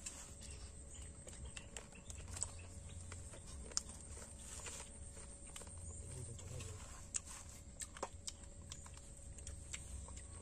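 Faint, scattered small clicks and taps of people eating boiled chicken by hand from steel bowls: meat and bones being torn apart and bowls being touched.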